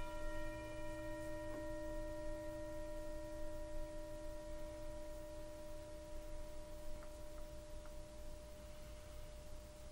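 Large metal singing bowl ringing out after a single strike, several steady tones sounding together and slowly fading; the lowest tone stops near the end.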